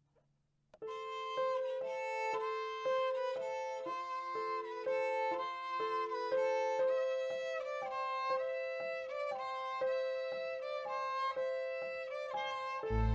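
Violin music: a slow melody of held notes, often two sounding together, starting about a second in after near silence. A deep low sustained note comes in just before the end.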